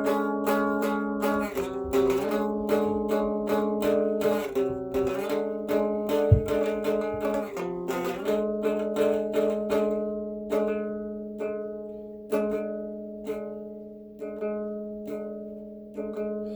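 Guitar picking a slow, repeating chord pattern, each plucked chord ringing and fading before the next, with a few chord changes along the way. There is one brief low thump about six seconds in.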